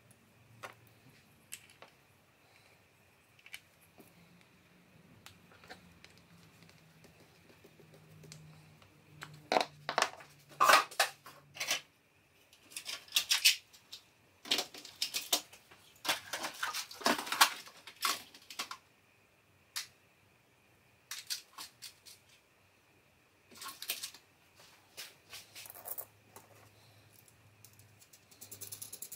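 Small workshop parts being handled on a wooden workbench: a metal bolt and wooden pieces tapping, clicking and rattling in scattered clusters, with a dense run of quick clicks near the end as the bolt is turned in a wooden disc.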